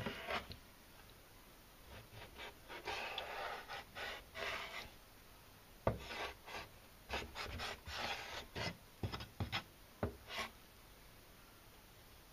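Kitchen knife cutting along a young yellowtail fillet to remove the pin bones, the blade rasping through the flesh and scraping on the cutting board in a run of short strokes. Sharp knocks of the blade on the board come at the start and about six seconds in.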